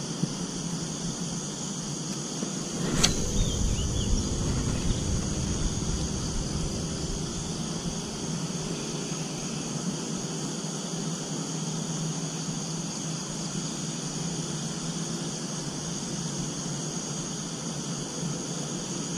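Steady high-pitched drone of insects calling, with a sharp click about three seconds in followed by a few seconds of low rustling.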